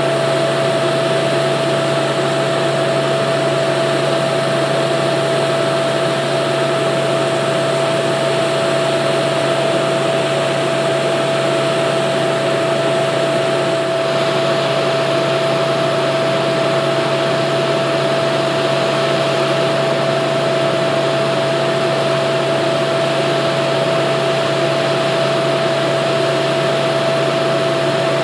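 Crane truck's engine running steadily with its hydraulic pump, a constant droning hum under a steady high whine.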